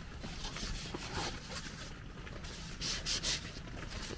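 Irregular rubbing and scraping strokes, the two loudest close together about three seconds in.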